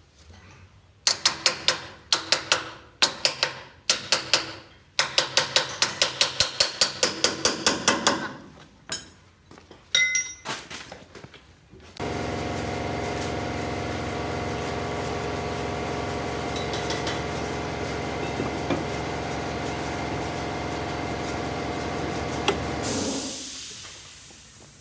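A hammer striking metal: runs of sharp, ringing blows, about four a second near the middle. Then a steady mechanical whirr starts suddenly, holds for about ten seconds and winds down near the end.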